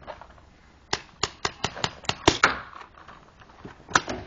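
Paintball markers firing: a quick string of about seven sharp pops from about a second in, roughly five a second, then a single pop near the end.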